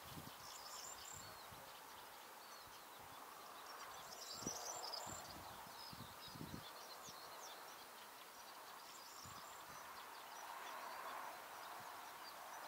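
Quiet outdoor ambience with faint, scattered chirps of distant songbirds. There are a couple of soft low thumps, about four and a half and six and a half seconds in.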